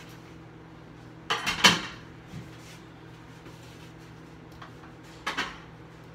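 Kitchen handling sounds: a loud clatter of several quick knocks about a second and a half in, a lighter knock soon after, and two sharp knocks near the end, over the steady low hum of a microwave oven heating bacon.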